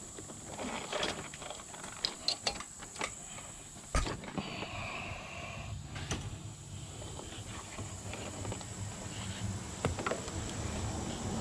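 Hands working wiring and trim: scattered clicks and knocks with light rustling, and a low hum coming in about four seconds in.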